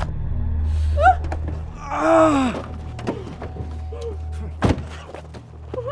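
A man's pained cries: a short one about a second in, a stronger, louder one about two seconds in, and softer groans after. A single heavy thud comes near the end.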